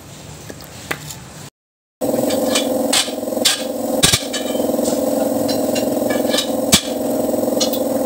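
Sharp metallic taps and clicks in a workshop, over a steady mechanical drone that starts after a half-second dropout about a second and a half in.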